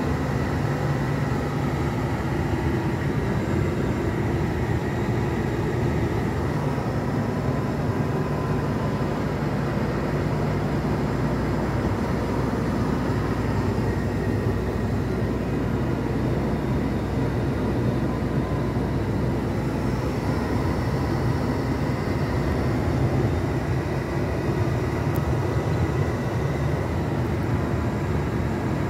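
Heavy truck's diesel engine running at steady cruise with road noise, heard inside the cab: a continuous even rumble with a faint steady whine above it.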